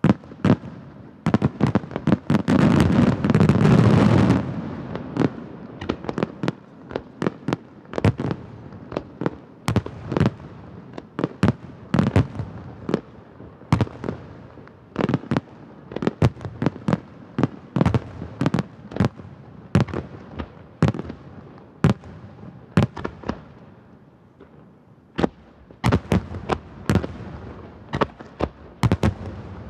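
A large fireworks barrage. A dense rush of shell bursts fills the first few seconds, then sharp booms follow in quick succession, a few a second, with a brief lull near the end.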